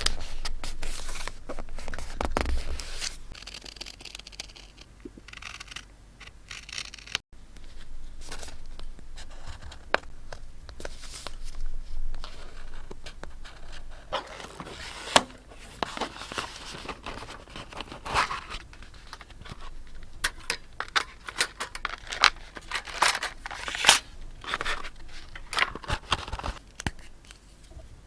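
Paper and stationery being handled close to the microphone: a string of irregular crisp rustles, scrapes and snips, like paper being torn, cut with scissors and crinkled.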